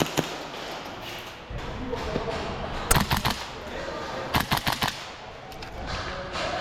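Airsoft guns firing in short rapid bursts, a string of sharp cracks about halfway through and another a second or so later, in an echoing indoor arena.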